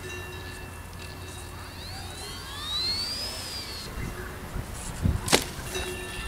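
Model glider flying past with a whine that rises and then falls over about two seconds, against wind rumbling on the microphone. A single sharp knock comes about five seconds in.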